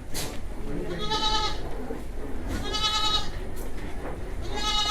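Goats bleating: three separate bleats, each about half a second long, over a steady low hum.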